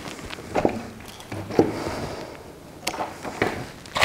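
Hands handling dried wreath materials: soft rustling with several short clicks and taps spread through it.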